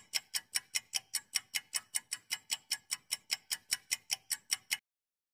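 Countdown-timer ticking sound effect: fast, even clock-like ticks, about five a second, that stop abruptly near the end.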